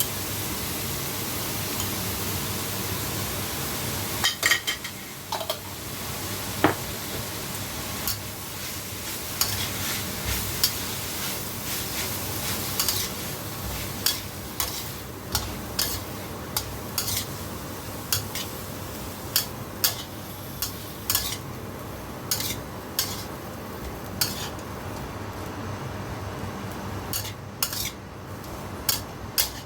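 Beef and cabbage sizzling in a hot pan while a spatula stirs and tosses them, knocking and scraping against the pan many times. The sizzle is strongest in the first half; the knocks come irregularly and more often later on.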